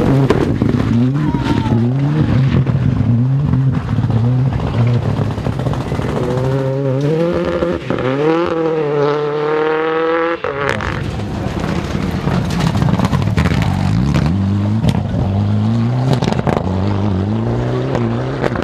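Rally cars passing flat out one after another, their engines revving hard through quick gear changes, with sharp cracks in between. One car's engine climbs steadily in pitch, then the sound cuts abruptly to another car about ten seconds in.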